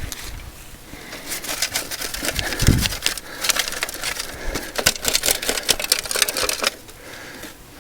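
Dirt and mud being scraped and worked by hand over a buried foothold trap: rapid, irregular crackling and scraping that thins out near the end.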